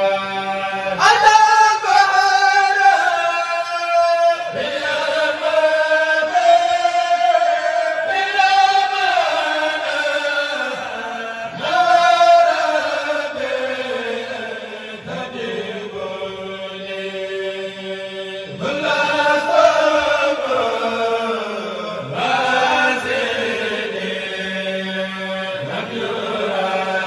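Men chanting Mouride khassaids, Arabic devotional poems, into microphones. Long drawn-out melodic lines slide slowly downward, and a new phrase begins every few seconds.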